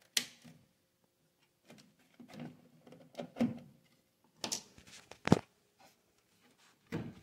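Clicks and rustling of plugs and cables being handled and pulled out of a power strip and a wall socket, in short scattered bursts, with one sharp click a little over five seconds in.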